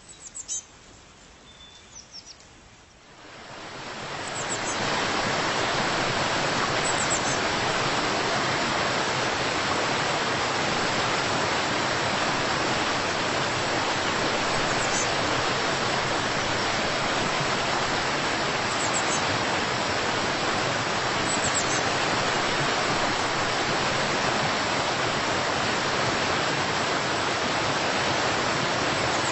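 Steady rush of falling water that fades in about three seconds in and then holds even, with a few short high bird chirps over it now and then.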